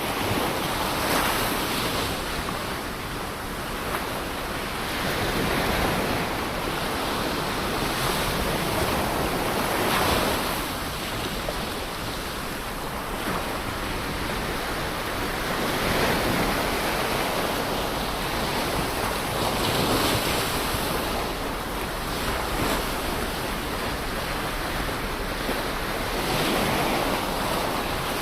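Ocean waves breaking on the shore, a continuous wash of surf that swells with each wave every few seconds, with some wind noise on the microphone.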